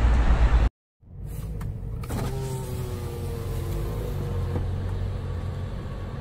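Loud low rumble of a car passing close on the road, cut off abruptly under a second in. After a short silence comes a steady low hum of idling car engines, heard from inside a car, with a faint thin whine that slowly falls.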